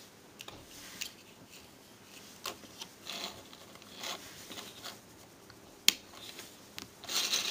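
Plastic Transformers action figure being handled and turned over by hand on a table: soft rubbing and scraping with a few light clicks, and one sharper click late on.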